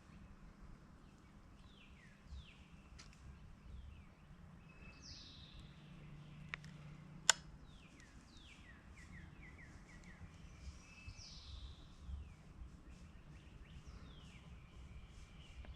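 Songbirds calling: many short, down-sliding chirps, with two sharp clicks about six and a half and seven seconds in, the second one the loudest sound.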